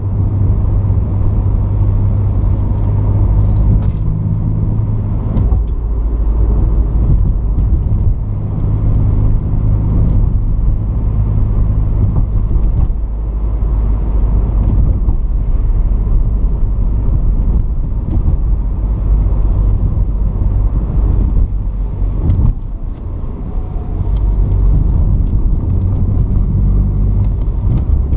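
1981 Porsche 944's 2.5-litre four-cylinder engine running as the car drives, with road noise. The engine note shifts in pitch a few times and eases off briefly about 22 seconds in.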